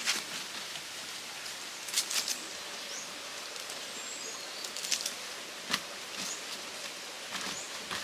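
Steady rush of a small rocky stream under sharp rustling and crackling of long green thatch leaves being handled, in a few quick clusters. A few brief high chirps from birds come in over it.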